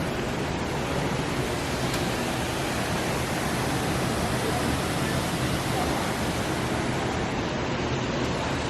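Steady, even rushing noise that does not change, with no distinct events or voices in it.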